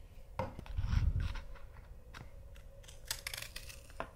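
Plastic child-safe scissors snipping paper: a scattered series of short, crisp snips and paper rustles, with a louder low thump about a second in.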